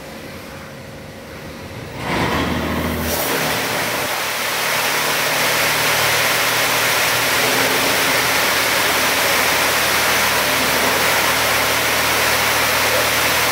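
A Fiat Bravo making a noise its owner likens to a washing machine. A low hum jumps up about two seconds in, and from about three seconds in there is a loud, steady rushing, whirring noise that holds to the end.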